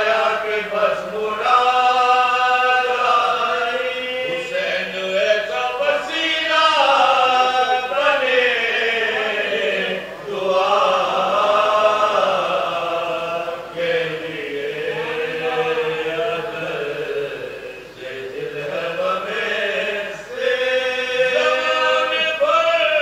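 Men's voices chanting a marsiya, the Urdu elegy for the martyrs of Karbala, unaccompanied in long melodic phrases. Short breath breaks come about ten seconds in and again near twenty seconds.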